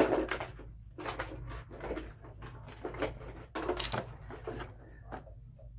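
Plastic toy cars being handled and moved about, with irregular knocks and clatters.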